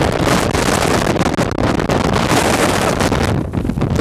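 Tropical-storm wind buffeting the microphone: a loud, continuous gusting rumble that eases slightly near the end.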